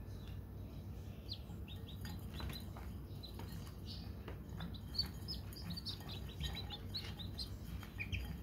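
Newly hatched chicks peeping: many short, high cheeps overlapping, growing busier from about two seconds in.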